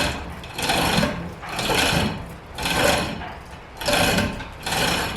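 Hand-operated hoist being worked to lower a heavy anvil, making rasping, ratchet-like strokes about once a second.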